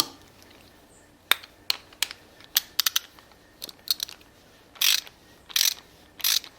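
Small carburetor parts and tools being handled: scattered sharp clicks and taps, then three short scraping rasps in the second half.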